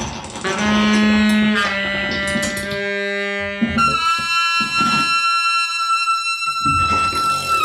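Free-improvised music for baritone saxophone, synthesizer and turntable: a run of held tones that step to new pitches every second or so. About halfway a steady high tone takes over, with scattered clicks beneath it.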